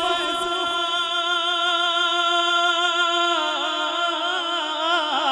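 A man's solo voice holding one long sung note of a naat with a slight vibrato. The note steps down in pitch about three seconds in and breaks into quick ornamental turns near the end.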